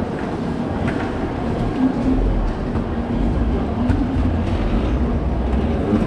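Railway station ambience: a steady low rumble and hum, with a few light clicks scattered through it.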